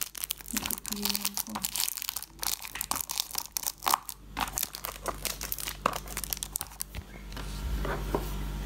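Clear plastic shrink-wrap on cosmetic cream boxes crinkling and tearing as it is pulled off by hand, a dense irregular crackle that dies away about seven seconds in.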